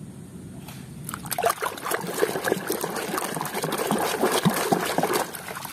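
A hand splashes and swishes in a plastic basin of soapy, muddy water, washing a toy. The splashing starts about a second in and stops just before the end.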